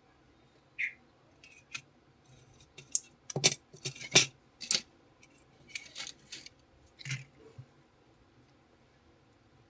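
Small metal repair tools clicking and clinking against hard parts: about a dozen irregular sharp taps, loudest in the middle.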